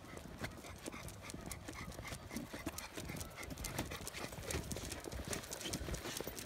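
Footsteps of people and dogs walking on asphalt: a fast, irregular patter of steps and scuffs.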